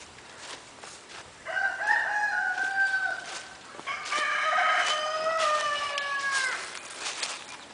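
Roosters crowing: two long crows, the second starting about four seconds in, each held level and then falling away at the end.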